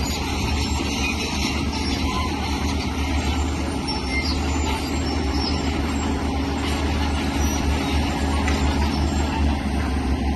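Heavy earthmoving machinery working: a large diesel engine runs steadily with a strong low drone, mixed with a constant higher clatter and hiss.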